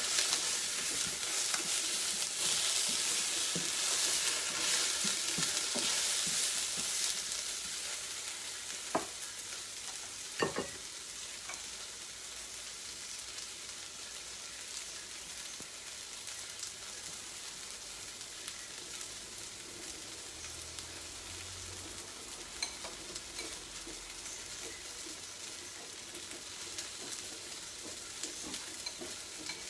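Baby aubergine and spring onions sizzling in olive oil in a stainless steel pan, stirred at first. The sizzle is louder for the first several seconds, then settles to a steadier, quieter sizzle, with two sharp knocks about a second and a half apart partway through.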